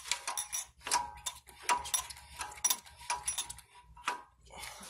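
Metal hand tools clinking and tapping against the steel hub and axle nut: an irregular run of light metallic clicks, some with a short ring.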